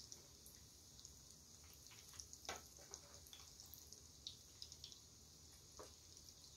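Faint sizzling of breaded kabocha cheese croquettes deep-frying in hot oil in a frying pan, with scattered small pops and crackles.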